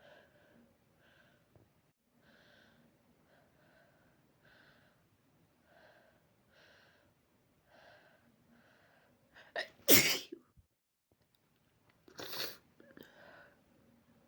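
A person's faint, repeated breaths build into a loud, explosive human sneeze about ten seconds in, set off by body spray they are mildly allergic to. A second, quieter burst from the nose and mouth follows about two seconds later.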